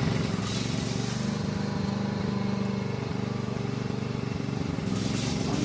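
Small engine of a Harbor Freight backhoe running steadily with a fast, even beat. A brief hiss comes in about half a second in and again near the end.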